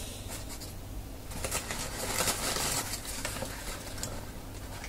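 Crumpled newspaper packing rustling and crinkling as hands dig into a cardboard box and pull it out, loudest from about a second and a half in to about three seconds in. A faint steady low hum lies under it.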